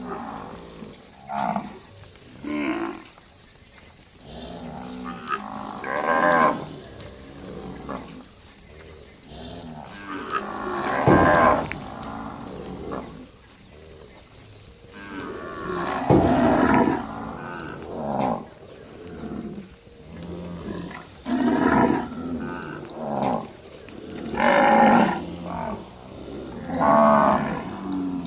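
Cattle mooing again and again: a dozen or so calls from more than one animal. Some are short, some long and drawn out, and they sometimes overlap.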